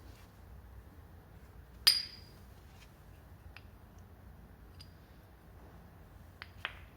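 A sharp metallic clink with a short ring about two seconds in, then two lighter clicks near the end: metal tools or parts knocking while a scooter's variator is being fitted.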